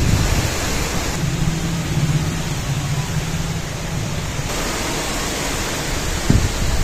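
Strong wind on the microphone: a steady rushing noise with a low rumble underneath.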